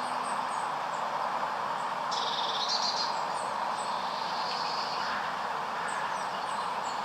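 Wild birds singing and chirping in short high phrases, the loudest trill about two seconds in, over a steady rushing background hiss.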